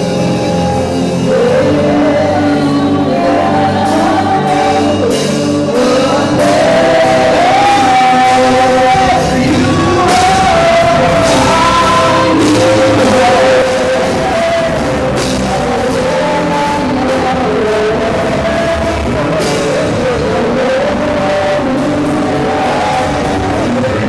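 Live gospel worship music: a voice sings a melody over instrumental backing with a beat, in a large reverberant hall.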